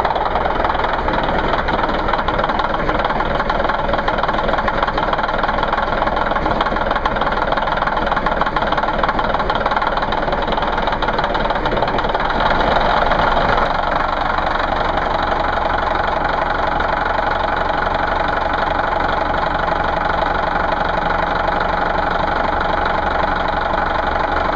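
Caterpillar D9G bulldozer's diesel engine idling steadily, its tone shifting slightly about halfway through.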